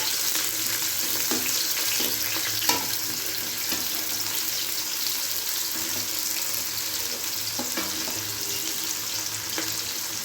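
Chopped onions sizzling in hot oil in a large kadai, a steady frying hiss, with a few sharp knocks and scrapes of a spatula stirring them.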